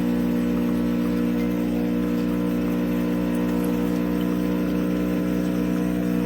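AIRMSEN 20-bar espresso machine's pump running with a steady hum while brewing a shot of coffee.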